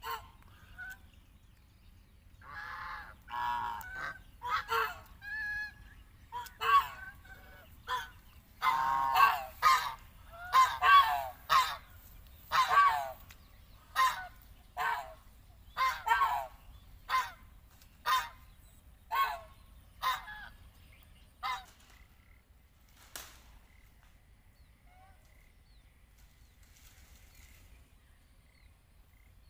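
Domestic geese honking: a long run of loud, repeated honks, several birds calling over one another in the middle, then single honks about once a second that die out about three-quarters of the way through.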